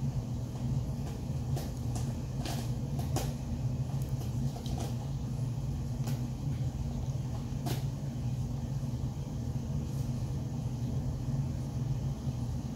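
Scattered light clicks and knocks of a Sony 28-70mm kit lens being handled and mounted onto a Sony A7 III mirrorless camera body, most of them in the first eight seconds, over a steady low hum.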